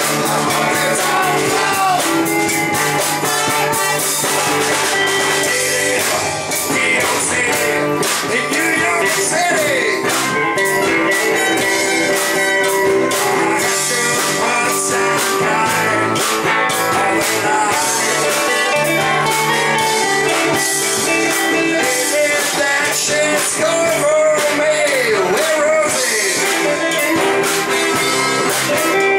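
Live band playing a bluesy rock-and-roll number on electric guitars, trumpet and drums, with a singing voice at times.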